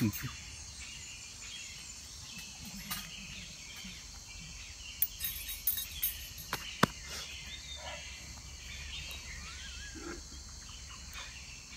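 Steady high-pitched chirring of crickets, with a few sharp clicks and knocks near the middle.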